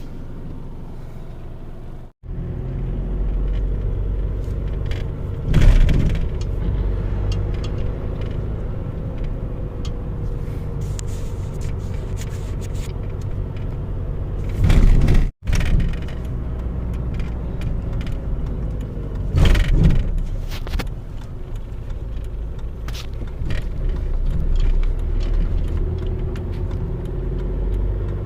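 Astra engine running at a steady low rumble, with three brief louder bursts, after its burnt-out starter has been replaced.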